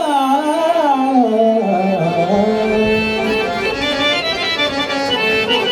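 Abhang (Marathi devotional song) with harmonium and tabla: the singer's voice holds and bends the last note of the line for about the first two seconds. The harmonium then carries the melody on its own over the tabla beat.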